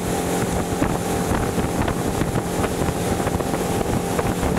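Motorboat engine running steadily under way, with wind buffeting the microphone.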